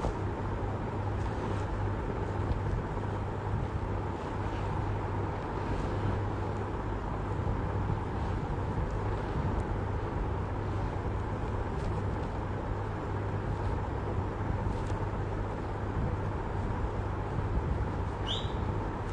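Steady low machine hum over a constant background noise, with a brief high rising chirp near the end.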